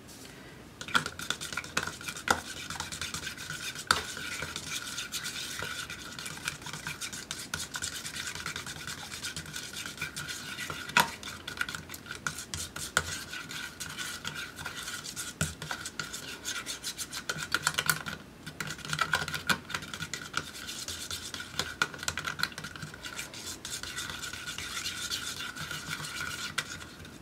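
Metal palette knife stirring and scraping thick paint around a small plastic cup, a steady run of scrapes with light clicks against the cup wall, pausing briefly about two-thirds of the way through.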